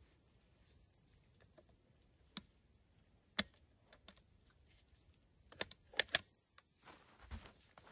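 A few sharp, separate mechanical clicks and clacks from handling a Cobray Terminator 12-gauge shotgun between shots, with two clicks close together about six seconds in.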